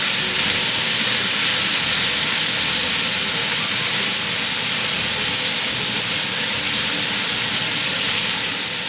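Chicken thigh pieces frying in hot oil in a pan, a steady loud sizzle.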